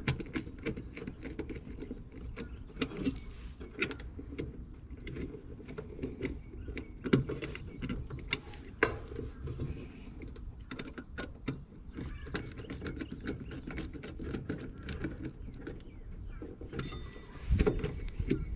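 Scattered small clicks and taps of a screwdriver and wire connectors being worked inside a heat pump's electrical panel, with a louder rustling bump near the end as the wires are pulled.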